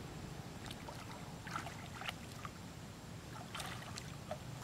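Macaques swimming in a pool, their movements making a few short splashes of water, clustered around one and a half to two seconds in and again around three and a half seconds in, over a low steady rumble.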